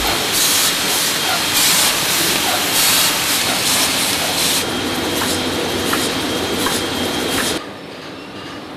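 Sheet-fed offset printing press running and feeding paper from its pile: a steady mechanical clatter and air hiss with a regular pulsing beat. Near the end it drops suddenly to a quieter, steady machine noise.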